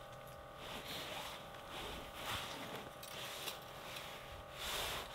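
Several soft rustling swishes, about a second apart, with the loudest near the end, over a faint steady hum.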